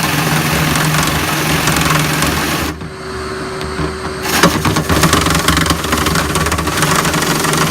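Dryer-vent cleaning equipment running: a steady motor hum under a loud rushing, rattling noise. About three seconds in the rushing drops away for a second and a half, then comes back with a run of sharp scraping knocks.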